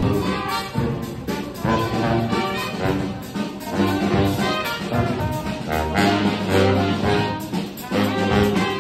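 Brass band playing a tune, several horns sounding together over low bass notes.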